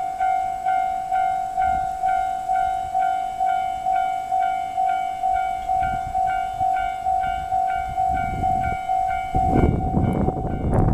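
Japanese level-crossing alarm ringing its pulsing electronic bell tone, about two strikes a second. About eight seconds in, the rumble of the approaching freight train, led by a DD51 diesel-hydraulic locomotive, builds and becomes the loudest sound near the end.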